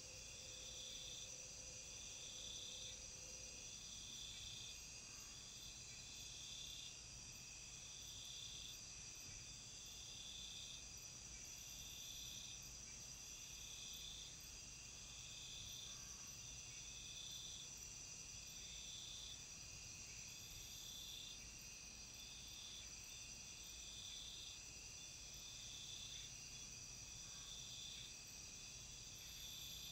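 Amazon rainforest insect chorus: steady high-pitched buzzing, with one pulsing call repeating about once a second.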